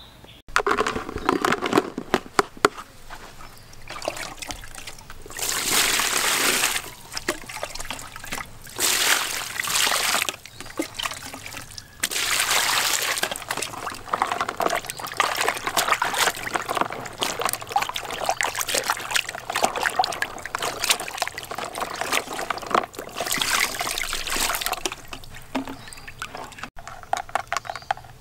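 Water splashing and sloshing in a plastic basin as a king crab is scrubbed by hand, with small knocks of the shell and several louder gushes of water.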